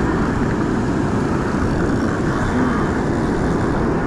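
Wind buffeting the microphone over breaking surf: a loud, steady low rumble.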